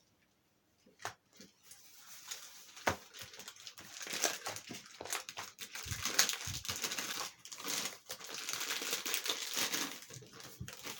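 Foamy slime, with shaving foam mixed in, being kneaded and stretched by hand on a table. It gives a dense sticky crackling of many small pops, starting about two seconds in.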